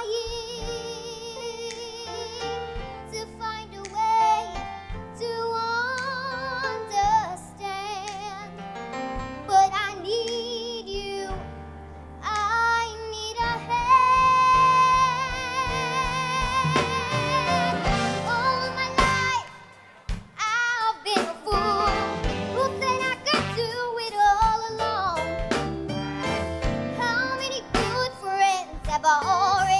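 A girl singing a solo song with wide vibrato over instrumental accompaniment, holding one long note in the middle, with a brief drop in level about two-thirds through.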